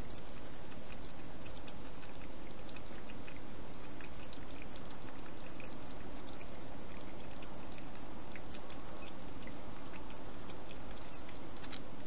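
Steady hiss with many small, irregular clicks scattered through it: a wild hedgehog eating at close range, chewing and smacking.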